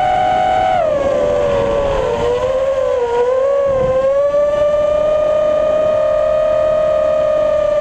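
FPV racing quadcopter's motors and propellers whining at speed, picked up by the onboard camera. The pitch drops about a second in, wavers, then holds steady through the second half.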